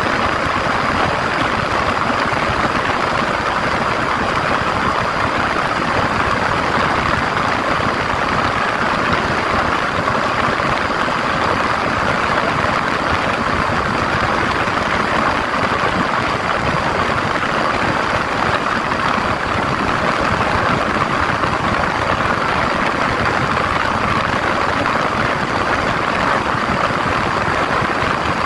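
Yamaha 150 cc single-cylinder motorcycle cruising steadily at highway speed, its engine drone blended with a constant rush of wind and road noise, with a thin steady high whine on top.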